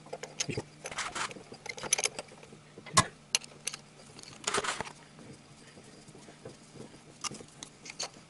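Scattered metallic clicks and light scraping of a spark plug socket and extension in a spark plug well as a spark plug is screwed in by hand, with one sharper click about three seconds in.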